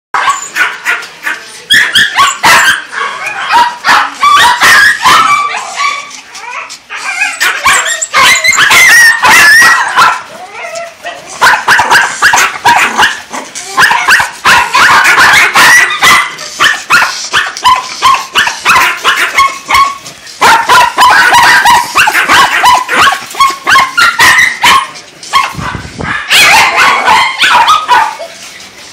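Many caged shelter dogs barking and yipping all at once, a continuous overlapping chorus of barks with some whimpering, easing off near the end.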